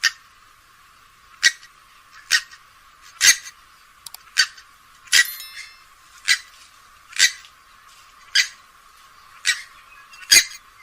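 Grey-headed swamphen giving a series of short, sharp calls, about one a second, eleven in all, thin-sounding with no low end.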